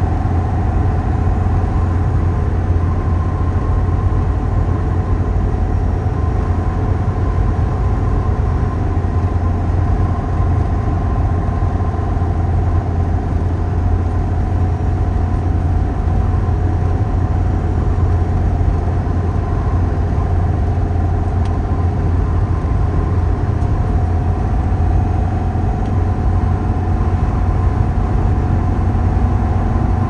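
Car cruising at motorway speed, heard from inside: a steady low rumble of tyres and engine with a faint, even whine on top.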